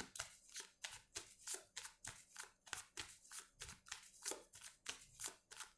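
Tarot cards being shuffled by hand: a quick run of faint, soft clicks, about four a second.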